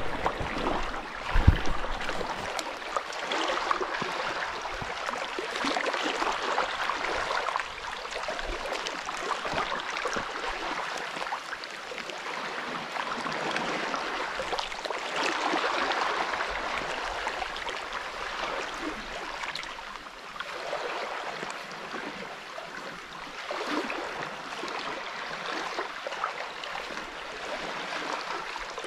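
Small waves lapping and gurgling among the stones at a rocky sea shore, swelling and fading every few seconds. A low thump about a second and a half in.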